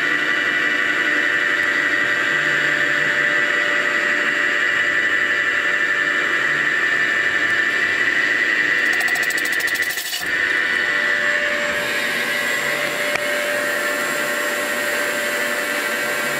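CNC mill's boring head cutting a cylinder bore in a Lotus 910 aluminium engine block, a loud, steady, high-pitched squeal. About ten seconds in it changes abruptly to a different steady whine.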